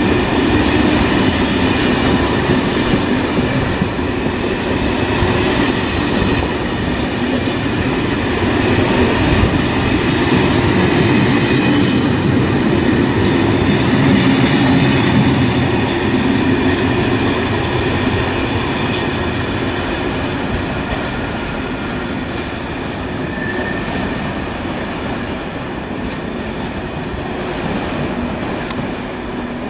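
SNCF Corail passenger coaches rolling past at speed: wheels clattering over the rail joints over a steady rumble, with a faint high ringing. The sound grows fainter over the last several seconds as the train moves away.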